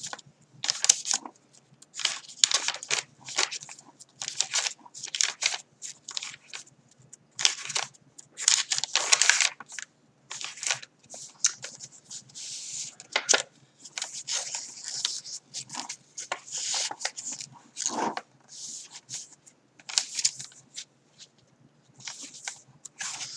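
Handmade journal pages of coffee-dyed and blue paper being turned and handled: a run of short, irregular paper rustles.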